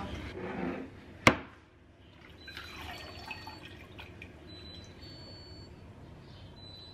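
Strained broth dripping from a kitchen sieve into a pot, with faint high pings from the drops. One sharp knock comes about a second in.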